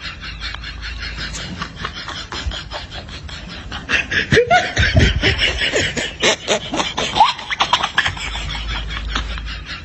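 Laughter sound effect: rapid, pulsing laughing that grows louder about four seconds in and eases off again about eight seconds in.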